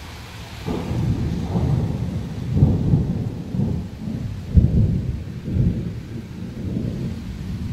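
Rolling thunder: a low rumble that starts about a second in and swells several times, loudest about halfway through, then dies away near the end.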